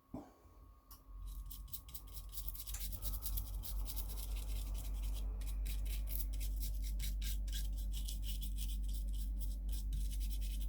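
A small brush scrubbing a mobile phone circuit board in quick, scratchy strokes, cleaning off flux and liquid-damage residue after soldering. A steady low hum runs underneath.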